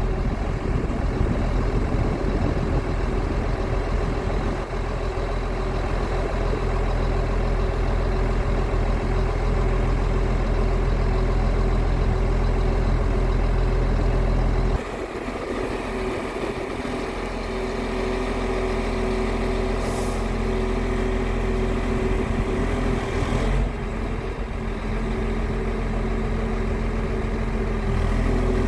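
Scania R 8x4 truck's diesel engine running steadily at idle, its tone shifting at a cut about halfway. About 20 s in there is a short hiss of air.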